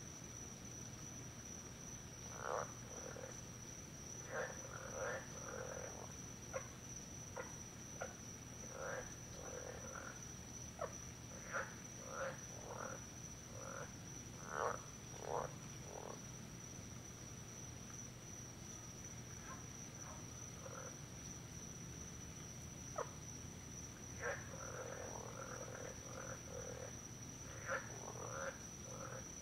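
Frogs croaking: short calls, some single and some in quick runs, with a lull in the middle, over a steady high-pitched whine.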